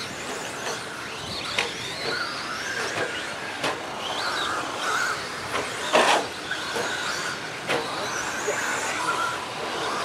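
Electric RC stadium trucks with 13.5-turn brushless motors racing on a dirt track: motors whining, rising and falling in pitch as they accelerate and brake. Several sharp knocks from the trucks landing or hitting the track, the loudest about six seconds in.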